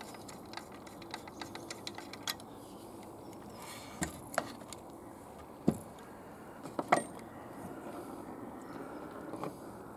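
Light clicks and taps of hands handling the small brass fittings of a model live-steam traction engine: a quick run of small ticks in the first two seconds, then a few sharper clicks spread through the rest, over a faint steady background hum.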